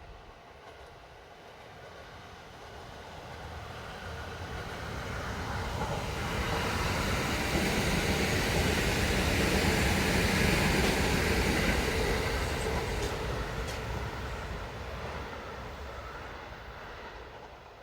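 Kintetsu Kyoto Line electric train passing by: its rumble and wheel noise grow louder over several seconds, are loudest about midway, then fade as it moves off.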